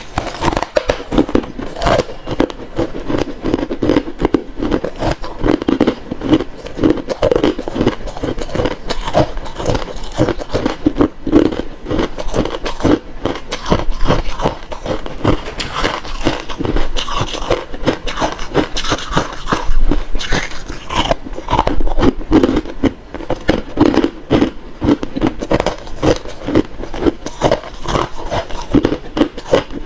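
Close-miked crunching of refrozen crushed ice being chewed: a dense, continuous run of sharp crunches and cracks.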